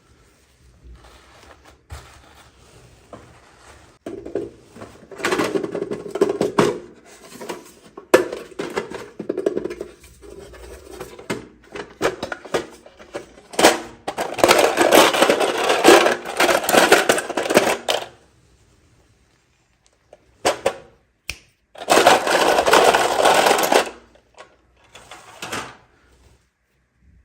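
Plastic packaging being crinkled and torn open while a miniature toy is unboxed: long stretches of crackling with quieter handling between them.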